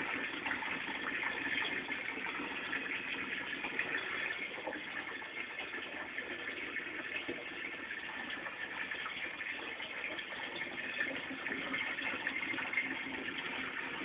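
Water running steadily into the tub of a 17-year-old Brastemp top-loading washing machine as it fills.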